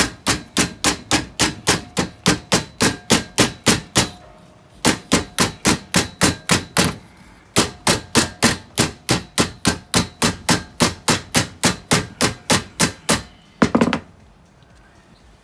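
Hammer blows driving a steel exhaust pipe into a manifold: quick, even strikes about four a second with a metallic ring, in three runs with short pauses between them. One louder clatter comes near the end.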